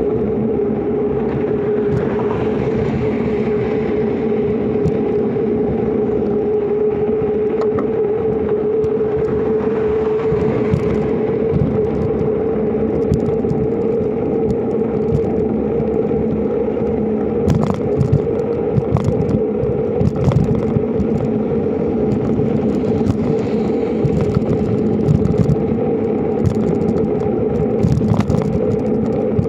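Wind rushing over the microphone and rolling noise from a knobby-tyred bike riding along a concrete road, with a steady hum underneath. Short clicks and rattles come now and then in the second half.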